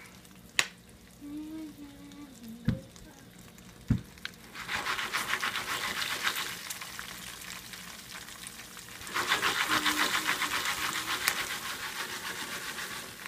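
Jiffy Pop aluminium pan being shaken back and forth over a gas burner, its kernels and oil rattling and sizzling against the foil. The shaking comes in two spells, starting about five seconds in and again about nine seconds in. A few single sharp clicks come before it.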